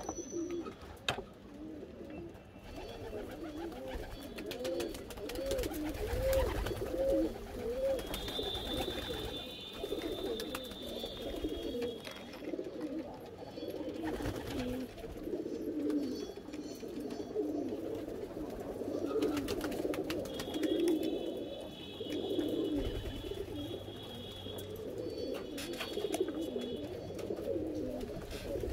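Several pigeons cooing continuously, low rolling coos overlapping one another, with a few faint clicks of fishing tackle being handled.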